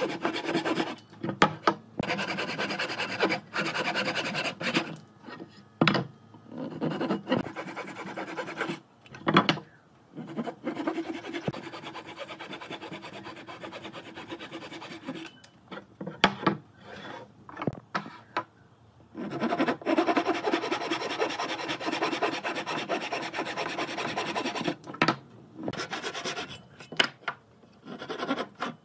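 An abrasive tool working a wooden surface, in stretches of a few seconds broken by short pauses, with a few sharp knocks between them.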